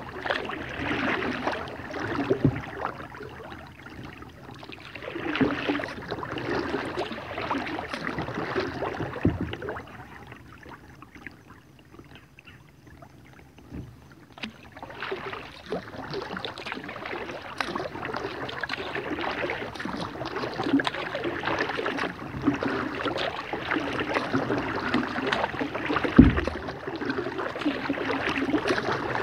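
Kayak paddle strokes dipping and splashing in slow river water, swelling and fading with each stroke, with a quieter glide of a few seconds partway through. Near the end a single sharp knock stands out, the loudest sound.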